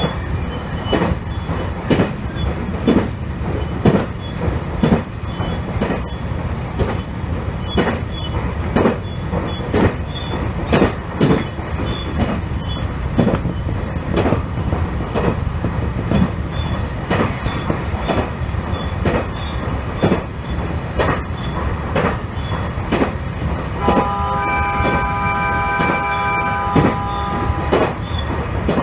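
A passenger train running along the line, with a steady rumble and wheels clicking over rail joints about once a second. Near the end a steady chord of several tones sounds for about three and a half seconds, the train's horn.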